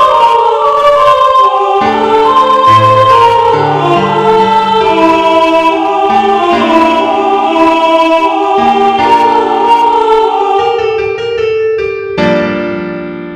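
Background keyboard music with choir-like voices holding slow, sustained chords; a new chord strikes sharply about twelve seconds in.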